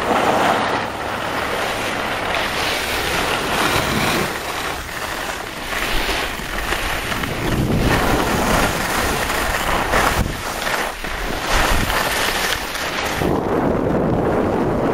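Wind rushing over the microphone of a camera carried downhill by a skier, mixed with the hiss of skis sliding over snow; the noise surges and eases every second or two.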